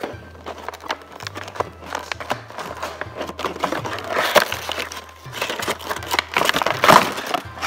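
Clear plastic blister packaging of a toy box crinkling and crackling as it is handled and pried open, loudest about four and seven seconds in. Background music with a low bass line plays under it.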